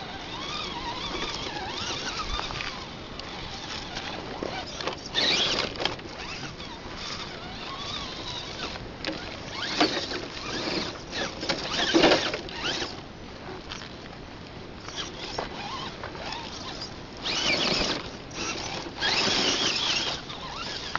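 Axial SCX10 RC rock crawler climbing over rock and loose dirt: its small electric motor and geared drivetrain whine, rising and falling in pitch. The tyres scrabble and crunch over stones, with several louder bursts of scraping and rattling.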